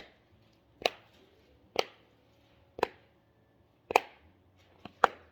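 Bubbles of a silicone pop-it fidget toy being pressed through one at a time: a sharp pop about once a second, seven in all, the last two close together.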